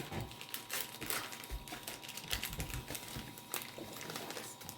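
Hands opening a Pokémon trading-card booster pack and handling the cards: irregular light clicks and rustles of the wrapper and card stock.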